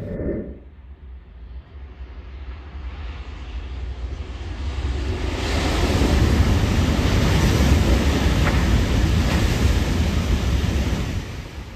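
Shinkansen bullet train passing at high speed on the elevated line: a rushing noise of air and wheels that builds over several seconds, stays loud for about five seconds, then eases off near the end.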